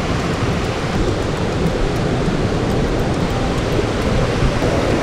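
Steady rushing of a fast whitewater river.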